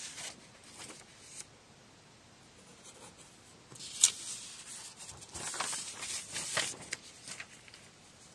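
Paper sheets rustling as pages of a document are lifted and turned by hand, with a sharp paper snap about four seconds in and a longer rustle after it.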